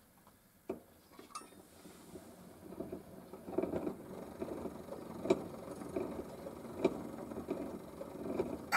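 Spring-wound gramophone motor and turntable starting and running up to speed. A click comes about a second in, then a mechanical running noise that grows louder, with a sharp tick every second or so. The motor still has a lot wrong with it.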